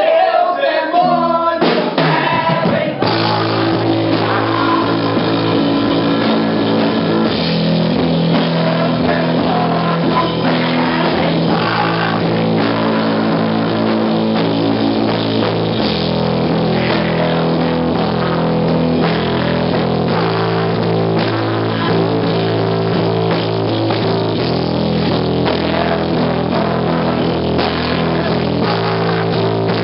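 Blues-rock band playing with electric guitar, bass guitar and drum kit. A short break with drum hits in the first few seconds gives way to the full band in a steady groove.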